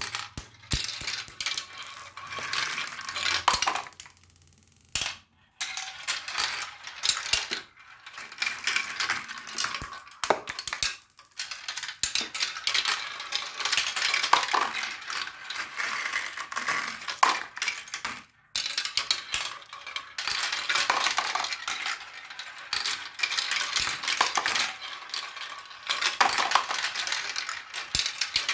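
Many marbles rolling and clattering down a marble run track, a dense stream of rapid clicks and rattles, with a brief pause about five seconds in.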